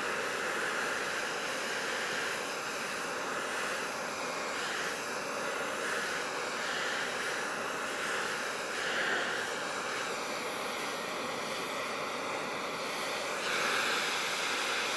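Handheld gas torch burning with a steady hissing roar, its flame played on an aluminum wheel rim to preheat the metal before TIG welding.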